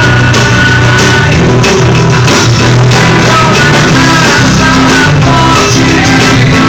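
A band playing loudly: drum kit keeping a steady beat under bass, guitar and a melodic line.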